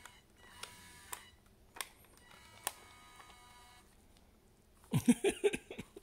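Yellow BD-unit remote-control toy droid giving faint electronic beeps and warbling chirps, with a few sharp clicks, then a louder short burst of warbling sounds near the end.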